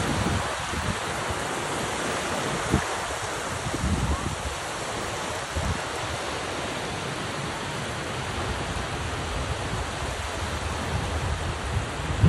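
Small waves washing and lapping onto a sandy beach, a steady hiss of surf, with irregular low thumps of wind on the microphone.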